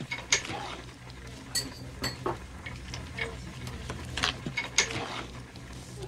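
A metal spoon stirring coarse tamale dough in a bowl, with irregular scrapes and clinks against the bowl. A steady low hum runs underneath.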